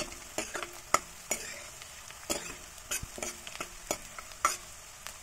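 Finely chopped onions frying in oil in a steel kadhai, a steady sizzle, broken by repeated scrapes and taps of a steel ladle against the pan as they are stirred. The onions are turning light brown.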